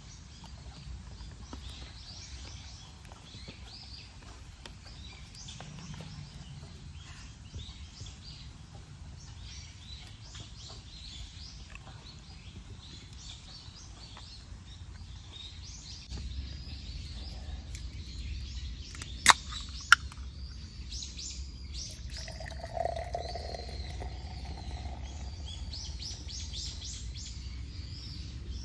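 Small birds chirping and twittering in woodland. About two-thirds of the way through come two sharp, loud clicks close by, a little over half a second apart.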